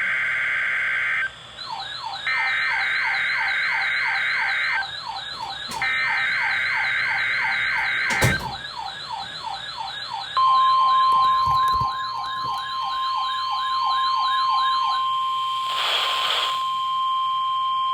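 NOAA Weather Radio SAME header: three harsh, buzzy data bursts of about two and a half seconds each. A Vector VEC438 weather radio's warbling alarm siren starts over them during the second burst. About ten seconds in, the steady 1050 Hz NWR warning alarm tone begins; the siren stops near the end, and a short hiss sounds over the tone.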